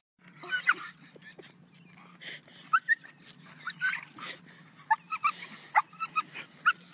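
A pit bull whining and yelping in a quick string of short, high-pitched squeals.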